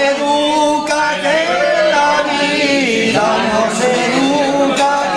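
A large group of men and women singing a Spanish song together, in long held notes.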